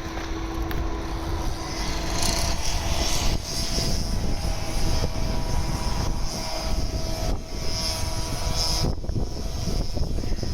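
Steady engine drone with a few held tones, over rumbling wind noise on the microphone.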